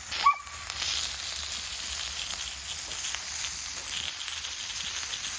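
A coiled sausage sizzling on the grill of a wood-fired fire pit: a steady hiss with scattered small crackles. A short, high squeak sounds once, just after the start.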